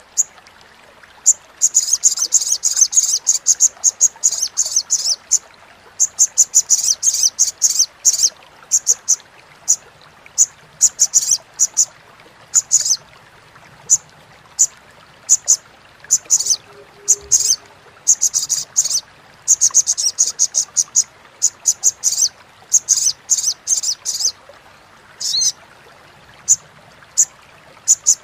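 Olive-backed sunbird giving rapid, high-pitched chattering calls in runs of one to three seconds, broken by short pauses and scattered single notes.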